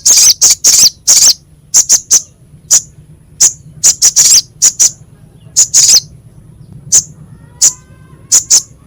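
Crimson sunbird (sogok ontong) calling in rapid, harsh, high-pitched chips: short sharp notes fired in irregular clusters, sometimes several in quick succession, with brief gaps between.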